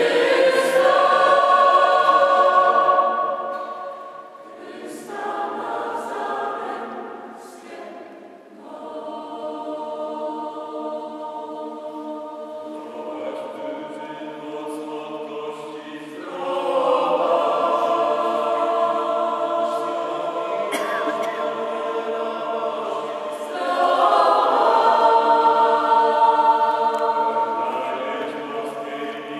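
Mixed choir of women's and men's voices singing a sacred choral piece, loud at first, softer through the middle, then swelling again to its fullest a little before the end.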